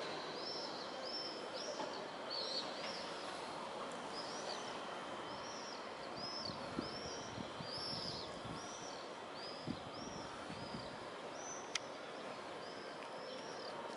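A small bird chirping over and over, short arched high notes about two a second, over a steady haze of city background noise, with one sharp click near the end.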